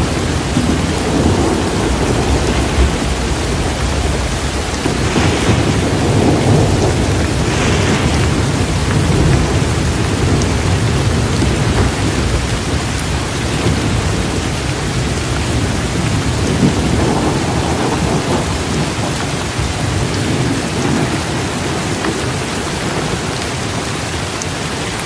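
Steady heavy rain with low rolling thunder rumbling beneath it, strongest in the first half and easing off toward the end.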